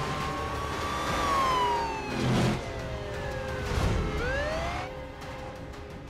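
DVD menu soundtrack of trailer-style music and effects. Sweeping tones fall and rise over a low rumble, with two heavy hits about two and four seconds in, and the sound dies away over the last second or so.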